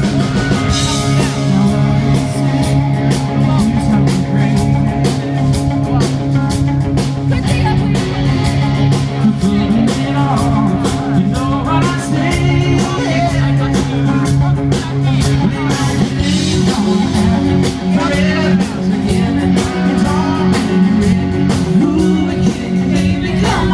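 Live country-rock band playing loudly at a sound check, with electric guitars, drums and a lead vocal.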